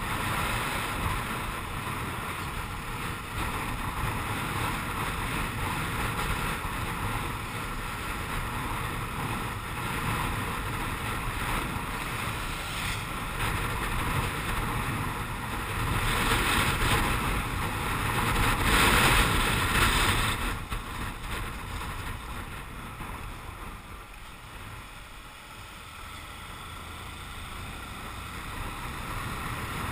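Motorcycle on the move, heard from the bike: wind rushing over the microphone with the engine and road noise beneath. It gets louder a little past the middle, then drops away and builds again near the end.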